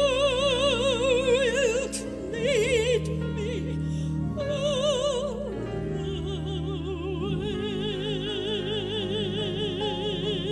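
A woman singing solo in a classical, operatic style with wide vibrato, over a steady instrumental accompaniment. Several shorter phrases are followed, about six seconds in, by one long held note.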